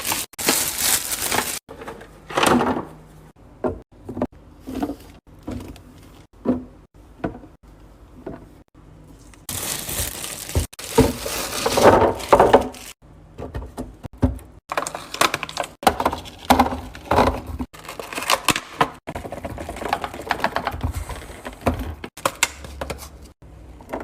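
Food items and containers being handled and put away in a refrigerator: knocks and clatter of items set down, with crackling and rustling of packaging, in short clips that cut off abruptly.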